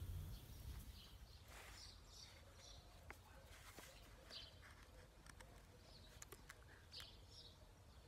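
Near silence: faint bird chirps and a few light clicks from a knife blade shaving a small wooden stick.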